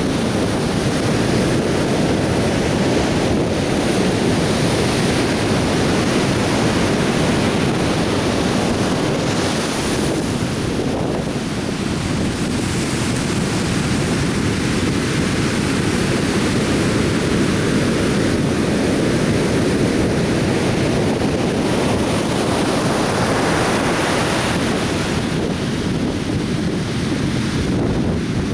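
Atlantic surf breaking and washing ashore in a continuous rush, with wind buffeting the microphone.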